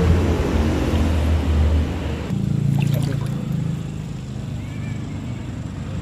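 Low, steady drone of a passing engine that shifts to a different pitch about two seconds in and then fades.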